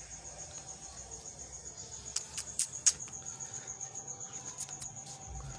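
Cricket chirping in a steady, rapid high-pitched pulse, with a few sharp clicks around the middle.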